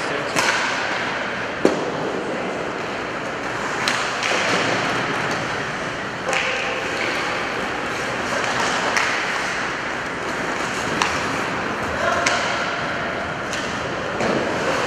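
Ice hockey in play: a steady din of skates carving the ice, broken by about half a dozen sharp clacks of sticks on the puck and knocks against the boards, with players calling out now and then.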